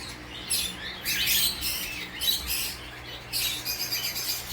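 Pet cockatiel chirping in a series of short high-pitched bursts.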